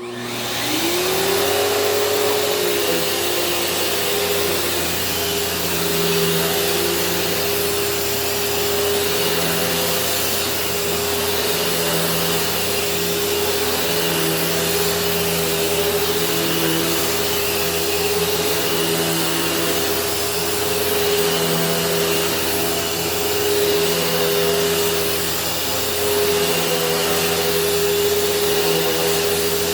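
Kenmore Progressive upright vacuum cleaner switched on, its motor spinning up with a rising whine over the first second or two, then running steadily. A lower hum under it comes and goes every couple of seconds.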